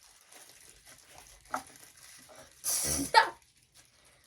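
A person coughing sharply once about three seconds in, amid faint rustling.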